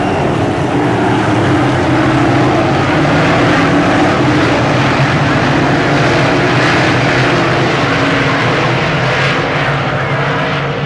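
A field of dirt modified race cars at full racing speed, their V8 engines blending into one loud, steady drone of many engines at once.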